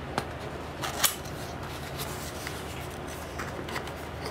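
Cardboard product box being opened by hand: fingernails pick at the sticker seal, with a sharp crackle of paper about a second in, then softer scratching and rustling as the card flap opens.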